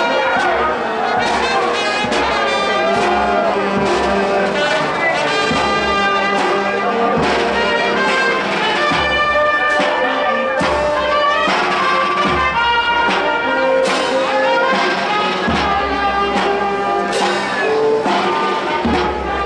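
Brass street band of the Giglio feast playing a tune with trumpets and trombones over a bass line, with a steady beat.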